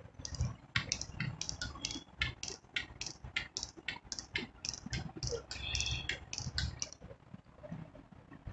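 Whiteboard duster wiped back and forth across a whiteboard in quick, short strokes, about three to four a second, erasing marker writing. It stops about seven seconds in.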